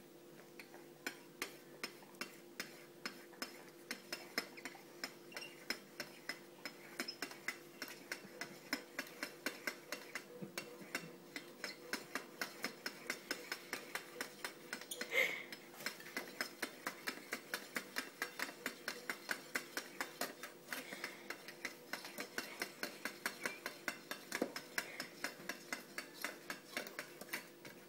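A domestic cat licking the face of a wall clock: quick, even lick clicks at about three to four a second, with one louder knock about fifteen seconds in.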